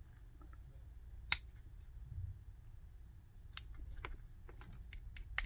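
Small clicks and taps of hand tools and wire being handled at a pair of lithium battery cells during soldering: one sharp click about a second in, then a run of lighter clicks near the end, over a faint low hum.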